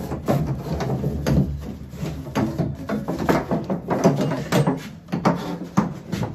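Handling noise from a length of PEX tubing being positioned along a wall among pipes: irregular knocks, taps and rubbing of plastic tubing against the wall and pipes.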